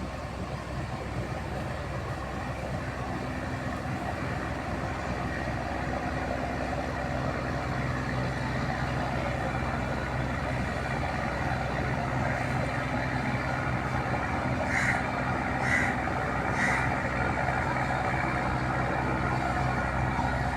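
A vehicle engine running steadily, slowly growing louder, with three short high-pitched sounds about a second apart about three-quarters of the way through.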